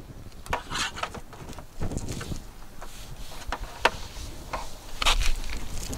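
Scattered clicks and rustles of hands handling the joystick cable and fittings on a power wheelchair's armrest.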